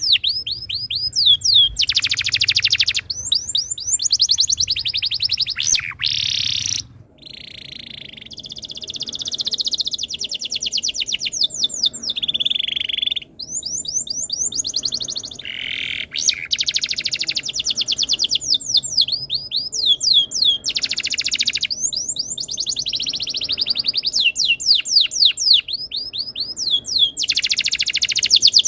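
Domestic canary singing: long, fast trilled rolls and runs of quick falling chirps, high-pitched, broken by short pauses.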